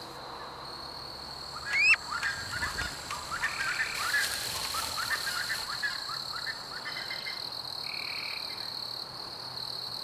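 Rainforest ambience: a steady high-pitched insect drone throughout, with a run of short rising chirping calls from just before two seconds in to about seven seconds, the first of them the loudest.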